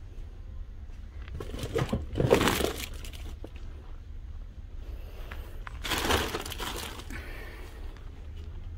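Rustling, crinkling handling noise in two bursts, one about a second and a half in and a second just before six seconds in, over a low steady hum.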